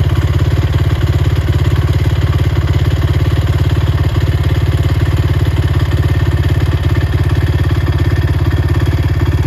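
Honda TRX450 ATV's single-cylinder four-stroke engine idling steadily.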